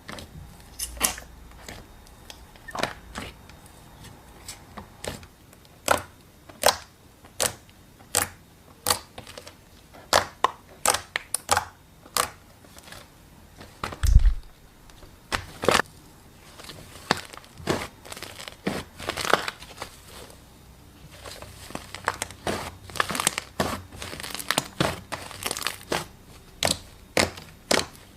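Slime being squished and worked by hand, giving sharp, irregular crackles and pops in loose clusters. There is one dull thump about fourteen seconds in.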